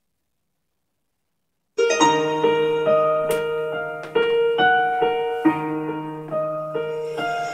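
Silence for about the first two seconds, then a karaoke backing track begins with a slow piano intro: struck notes and chords ringing out over a held bass note.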